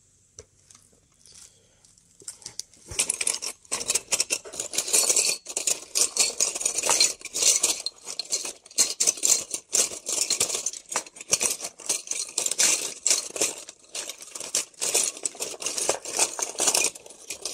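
Metal-bodied Geiger-Müller counter tubes clinking and rattling against each other as a hand rummages through a boxful of them: a dense run of irregular metallic clicks that starts a couple of seconds in and stops near the end.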